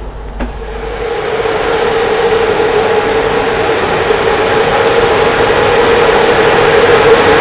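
CFR class 40 (060-EA, 5100 kW) electric locomotive approaching slowly with a steady hum that grows steadily louder as it nears. A single sharp click about half a second in.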